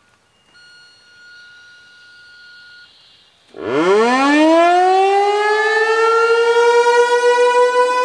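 ASC T-128 rotating outdoor warning siren starting its attack signal: about three and a half seconds in it winds up from a very low pitch, climbing fast and then levelling off into a loud, steady high wail whose loudness wavers as the horn head turns. A faint steady high tone comes before it.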